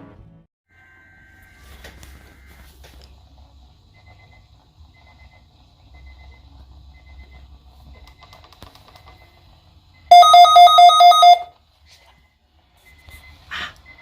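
Alert-equipped weather radio receiver sounding its alarm for the weekly Weather Radio Canada test: a loud, rapidly pulsing electronic beep, about six pulses a second, lasting about a second and a half, about ten seconds in. Faint steady electronic tones come before it.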